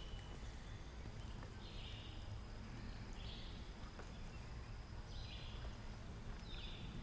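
Caperlan WXM 50 popper being twitched across the canal surface on a topwater retrieve: faint splashy pops about every second and a half, over a steady low outdoor rumble.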